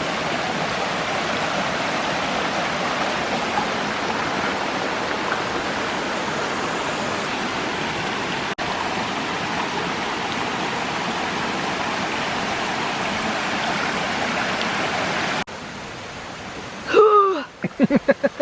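Steady rush of flowing water from a mountain stream beside the trail. Near the end it abruptly becomes quieter and a short vocal sound is heard.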